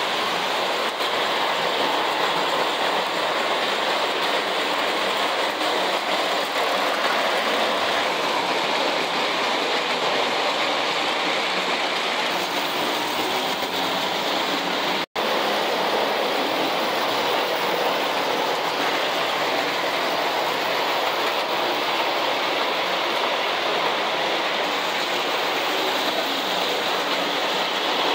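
Standard gauge toy trains running on three-rail track: a steady rumble of wheels and motors on the rails. The sound cuts out for an instant about halfway through.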